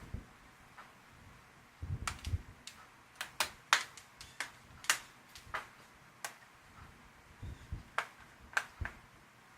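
Irregular sharp clicks and light knocks of hard plastic and metal laptop parts being handled, as fingers work at a drive that is stuck inside a Lenovo ThinkPad P50.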